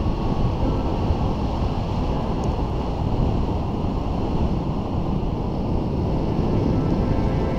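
Steady rush of wind noise from airflow buffeting the camera's microphone during paraglider flight, heavy and low-pitched.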